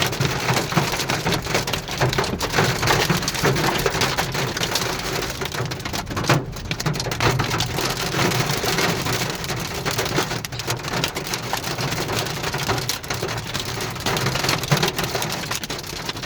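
Heavy rain and quarter-size hail pelting a car's roof and windshield, heard from inside the car as a loud, dense, unbroken stream of small impacts.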